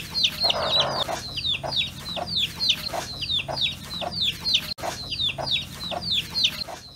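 A brood of young chicks peeping in rapid high chirps that slide downward, several a second, with their mother hen clucking low beneath them.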